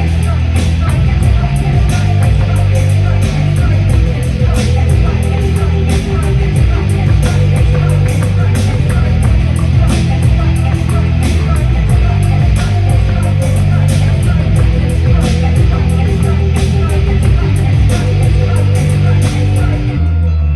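A rock band playing loudly: guitars and bass over a steady beat of regular sharp drum hits.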